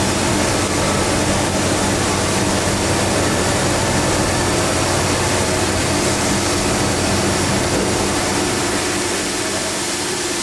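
Okamoto ACC 84 EX surface grinder running with its grinding wheel spinning free and the empty magnetic chuck table traversing under it: a steady machine hum under a constant hiss, easing slightly near the end.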